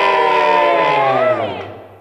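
A group of voices singing together, holding one long chord on the word "Johnny" that fades out near the end.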